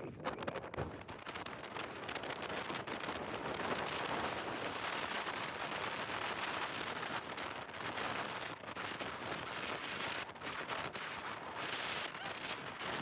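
Very strong wind rushing and buffeting the microphone, with many sharp crackles through it.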